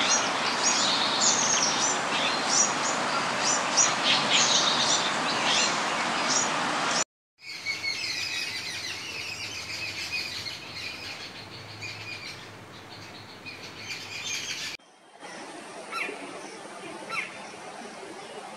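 Jungle babblers chattering: many short, high calls over a steady background noise. The calls turn quieter about seven seconds in, then sparser near the end.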